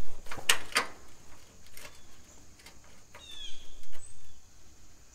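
Two sharp metallic clicks about half a second in, then a fainter one, from hand work on the old tractor's hood and sheet-metal body. A bird gives a short falling chirp about three seconds in.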